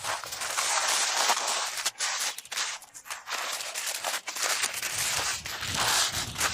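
Firewood burning in a tandoor: steady crackling with many sharp pops over a rushing noise that swells and fades.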